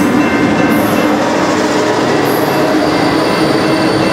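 A VIA Rail Siemens Venture passenger train rushes past at speed, a loud steady roar of wheels on rail. Over it a level-crossing bell rings in a steady repeating beat.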